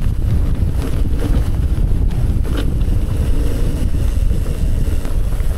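Wind buffeting the microphone as a steady low rumble, with a few knocks and rattles from a mountain bike riding down rough ground.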